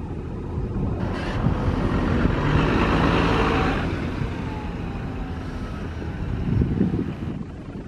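City bus passing close and driving away, its engine and tyre noise swelling to a peak about two to three seconds in, then fading as it moves off.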